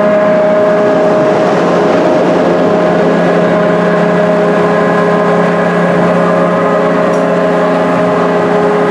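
Witches' Wheel spinning ride in motion: a loud, steady mechanical hum with several unchanging whining tones from its drive.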